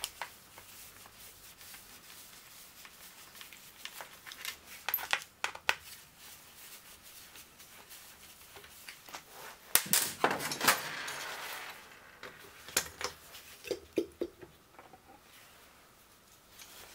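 Scattered small metallic clicks and knocks as the oil pump of a Yamaha XT600 single-cylinder engine is worked loose by hand and lifted out of the crankcase. The loudest cluster of knocks comes about ten seconds in, followed by a brief scraping.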